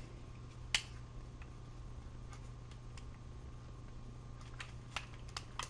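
Faint clicks and taps of the plastic parts of a Transformers Iron Man toy being handled while its chest piece is worked to peg into place, with one sharper click about a second in and several small clicks in the second half, over a steady low hum.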